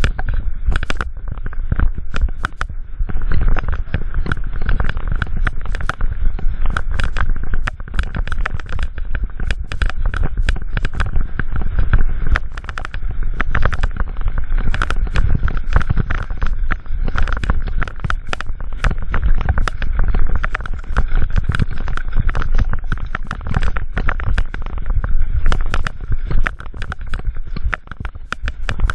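Mountain bike descending a rocky dirt trail: a constant run of clattering knocks and rattles as the bike rides over stones, over a heavy, low wind rumble on the camera microphone.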